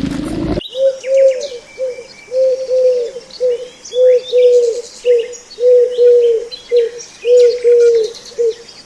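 A bird cooing: a long run of short, arched notes, about two or three a second, with faint higher chirps above them. It begins just after a loud rough noise cuts off abruptly about half a second in.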